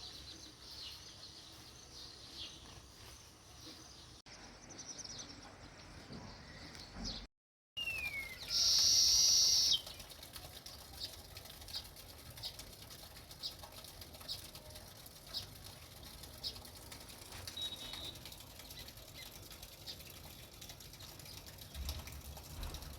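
House sparrows chirping: short high chirps scattered throughout, about one a second in the second half. The sound drops out briefly about seven seconds in, followed by a loud, dense high burst lasting about a second.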